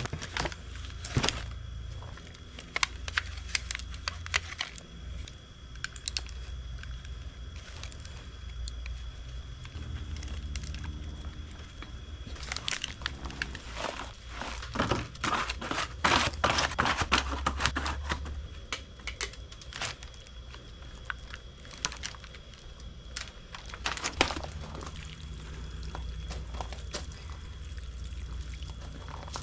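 Hands scooping and pressing potting mix into thin black plastic nursery pots: irregular crinkling and crackling of the flexing plastic, rustling soil and small clicks as the pots are handled and set down, busiest in the middle of the stretch.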